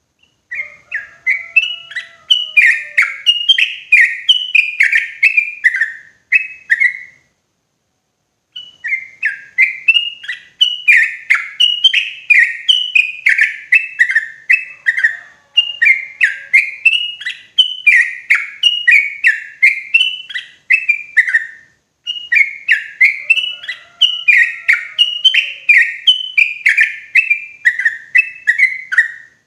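Yellow-vented bulbul (trucukan) singing its loud, clear song: runs of quick, bubbly notes, phrase after phrase, pausing for about a second a little after six seconds in.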